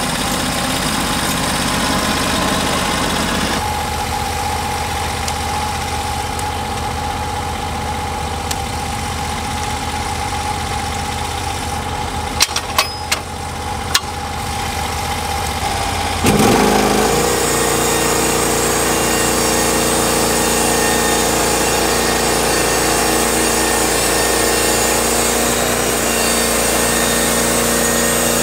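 Portable bandsaw mill's engine running steadily at low speed, with a few sharp clicks a little before halfway. Soon after, it revs up quickly and runs on louder at a higher speed.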